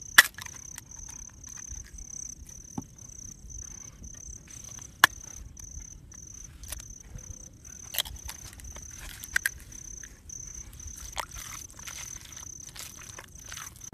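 Crickets chirping steadily in a high, pulsing trill. Two sharp clicks stand out, one right at the start and one about five seconds in, with softer scattered clicks and squishing near the end as hands mix egg into flaked fish in a plastic bowl.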